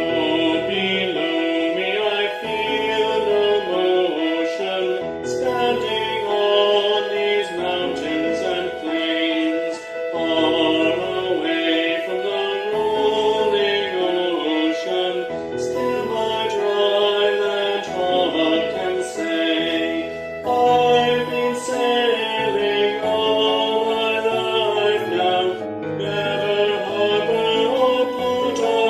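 A man singing a slow hymn verse over a sustained instrumental accompaniment.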